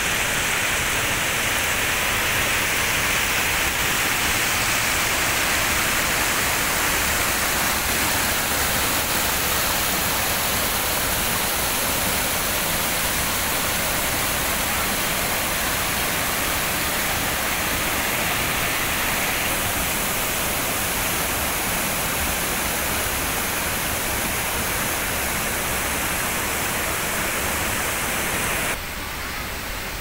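Steady rush of white water from a waterfall and the rapids of the boulder-strewn river below it. It drops somewhat quieter just before the end.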